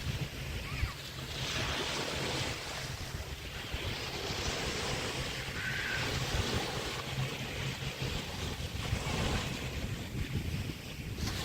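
Small bay waves washing onto a sandy beach, the hiss swelling and fading several times, with wind rumbling on the microphone.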